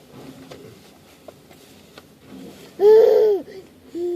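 A child's voice making a loud wordless vocal sound about three seconds in, its pitch rising then falling, then a shorter, quieter one near the end.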